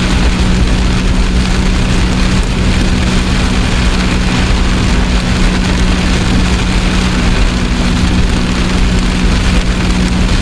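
Heavy rain pounding on a vehicle's roof and windshield, heard from inside the cab as a loud, unbroken wash of noise over a steady low hum.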